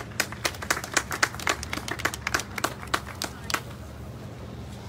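Scattered hand-clapping from a small group of people welcoming a speaker, a couple of dozen sharp, uneven claps that die away after about three and a half seconds, over a steady low hum.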